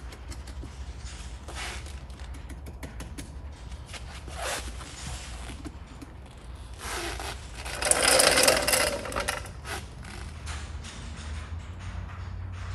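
Vinyl graphic film and its paper mask being handled and peeled on a car door: scattered light scraping and crackling, with a louder rasp lasting about two seconds a little past the middle.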